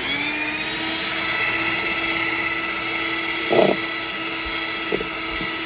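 Proctor Silex electric hand mixer running steadily at speed, its beaters whipping an egg-white batter in a bowl, with a steady motor whine. A short louder burst comes a little past halfway.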